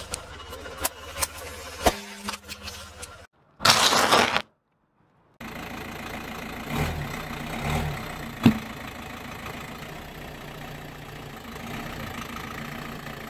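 Car tyre rolling over and crushing things with the engine running slowly: sharp cracks as plastic disposable lighters break, a loud burst of hiss about four seconds in, and after a brief silence a steady engine hum with a sharp crack as the tyre presses down on an aerosol deodorant can.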